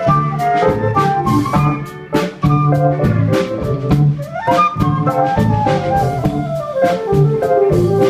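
Live band playing an instrumental passage: a drum kit keeps a steady beat under electric bass and pedal steel guitar, with a melody on flute, and a rising slide about halfway through.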